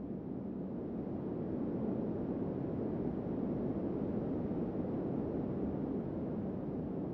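A low, steady rushing noise that swells slowly over the first two seconds and then holds.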